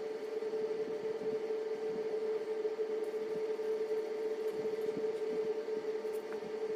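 A steady hum at one mid pitch over a faint hiss, unchanging throughout.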